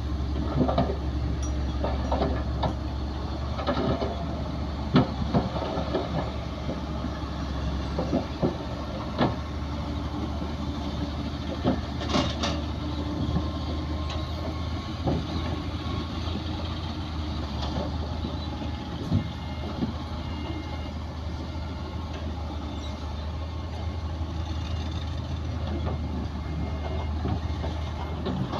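Heavy diesel earthmoving machinery running steadily, with frequent clanks and knocks of metal and soil.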